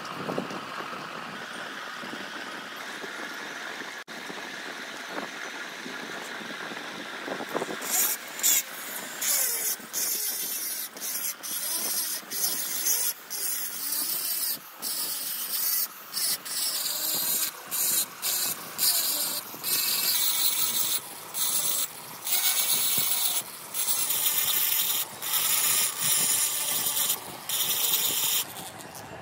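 Handheld rotary grinding tool cutting into a two-stroke motorcycle cylinder to open an added intake port. After a quieter start, from about eight seconds in, it grinds in many short, loud bursts with brief pauses between them.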